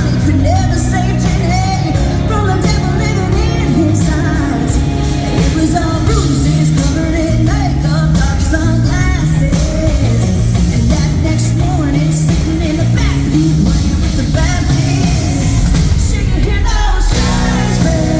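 A live band playing a country-rock song, with a woman singing lead over a steady drum beat.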